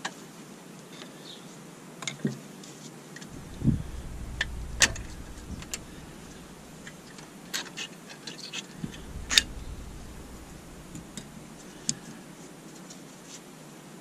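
Scattered sharp metallic clicks and taps of a thin metal pick working at a Rover 75's front brake caliper. A low rumble runs underneath for several seconds in the middle.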